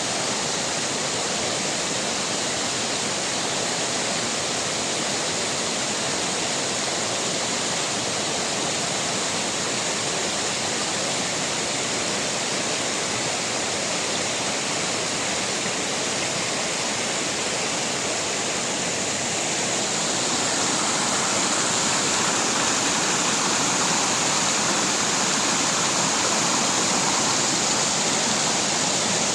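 Waterfall pouring into a pool: a steady rush of water that grows a little louder about twenty seconds in.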